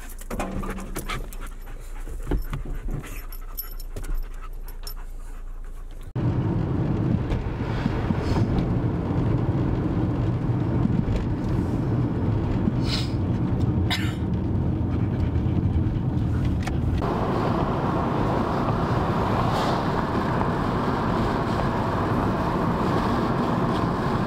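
A dog panting inside a moving car. About six seconds in, a loud, steady rush of wind and road noise from an open window sets in suddenly and continues.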